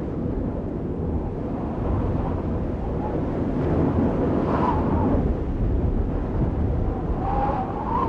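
Steady low rumbling noise of an outro sound effect, building slightly, with faint brief tones about four and a half and seven and a half seconds in.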